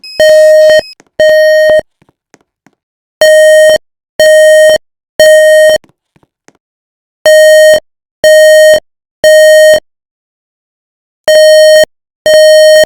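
Fire alarm evacuation tone in the temporal-three pattern: three loud beeps of about half a second each at one steady pitch, then a pause, the group repeating about every four seconds. It is the standard signal to evacuate the building.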